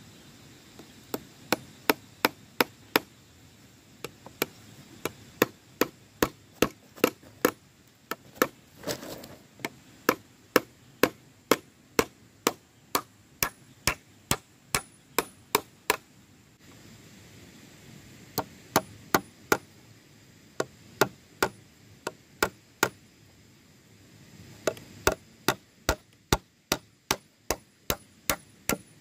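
Repeated sharp strikes of a hand tool, such as hammering or chopping, about two to three a second. They come in runs broken by two short pauses and quicken near the end.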